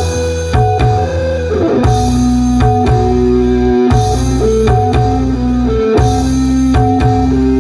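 Music with strummed guitar, bass and drums and a steady beat, played loud through a home-built power amplifier (10 A, CT 45 toroidal transformer) and its speaker box.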